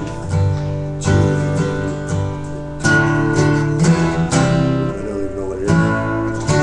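Acoustic guitar playing through a chord progression: plucked bass notes under strummed chords, with a new chord about every second and a half.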